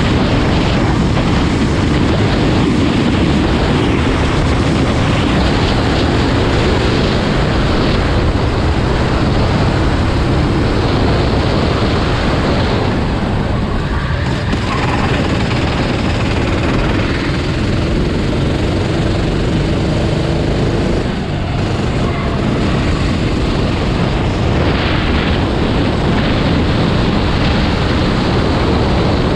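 Racing vehicle engines running loud and continuous, with an engine's pitch rising slowly around the middle.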